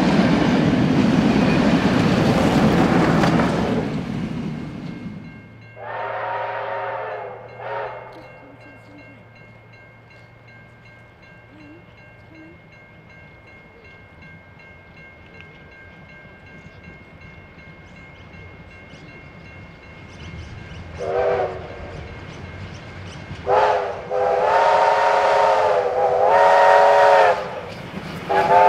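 Steam train: the rumble of its carriages rolling past fades out over the first few seconds. Then steam locomotive whistles sound from a distance, getting closer: two short blasts about six seconds in, another near twenty-one seconds, and a run of longer blasts toward the end as the locomotives draw near and the running noise grows.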